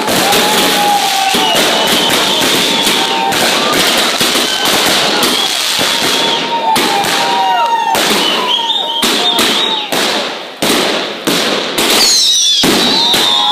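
Fireworks firing in a rapid, continuous barrage: shots launching from the ground and crackling bursts overhead, easing briefly about ten seconds in before picking up again.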